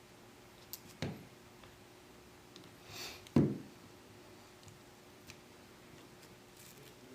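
Two sharp clicks from plastic prying tools and guitar picks working against a phone's frame and glass, about a second in and a louder one about three and a half seconds in, with a brief scrape just before the second.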